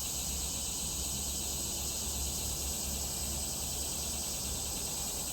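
Steady, high-pitched chorus of insects droning without a break, with a low rumble underneath.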